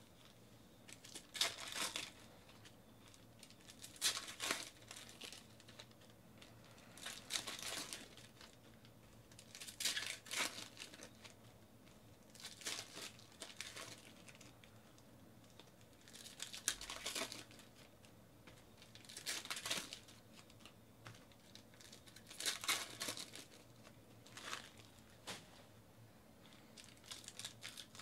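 Foil trading-card pack wrappers crinkling and tearing as they are ripped open by hand, in short bursts every two to three seconds.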